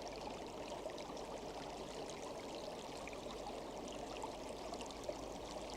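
Steady flowing water of a stream, a background nature sound effect running evenly under the narration.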